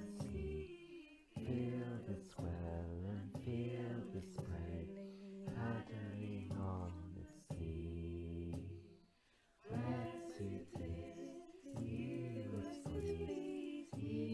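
Choir singing a sea shanty over a low held accompaniment and percussion hits, with a short break in the singing about two-thirds of the way through.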